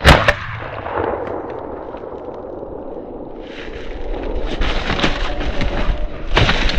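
A single loud shotgun shot right at the start, its report echoing away over about a second. From about three and a half seconds in, a steady rushing noise builds, with a sharp knock near the end.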